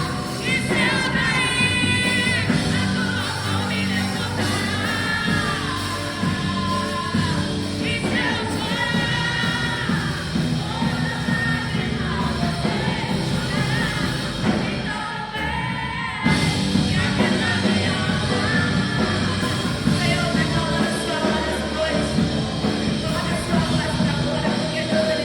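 Live worship band with a lead voice singing, over sustained band accompaniment. The music drops back briefly and then comes back in fuller near the end.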